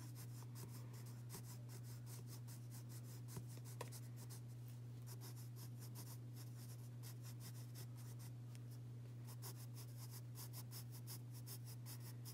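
Graphite pencil scratching on paper in quick, short back-and-forth strokes, shading fur texture, over a steady low hum.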